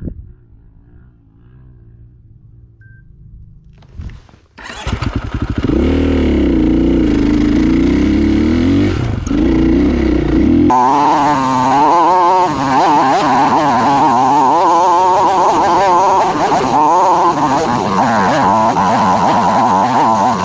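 Yamaha TTR 230 dirt bike's single-cylinder four-stroke engine pulling up a steep hillclimb. It is faint for the first few seconds, turns suddenly loud and close about four and a half seconds in, and its pitch rises and falls as the throttle is worked. About eleven seconds in it turns higher and brighter.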